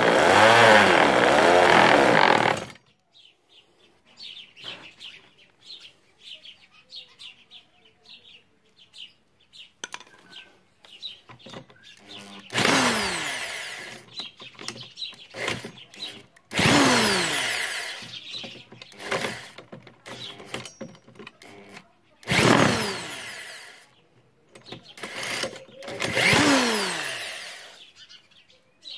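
Bare two-stroke chainsaw engine running, then cut off sharply about two and a half seconds in. After a pause with small clicks, an electric drill spins the engine over four times. Each whirring burst lasts a few seconds and winds down in pitch when released, and the engine does not catch.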